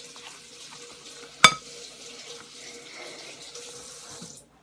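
Kitchen tap running into the sink, a steady hiss of water that is turned off and stops abruptly near the end. One sharp knock, the loudest sound, comes about a second and a half in.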